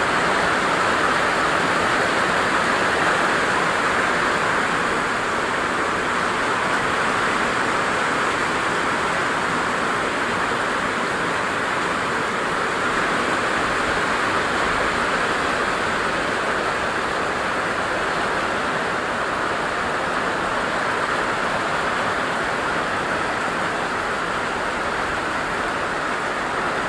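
Steady rushing of water in a flood, a loud even hiss-and-roar with no break or change.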